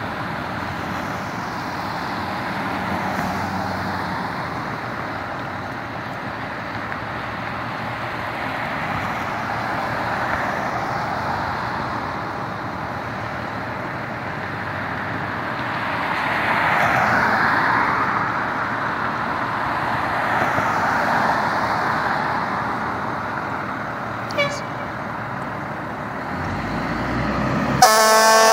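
A fire engine idling with steady traffic noise that swells and fades as vehicles pass, and a short chirp a few seconds before the end. Near the end its warning devices start suddenly and loudly: a horn blast and a siren beginning to rise.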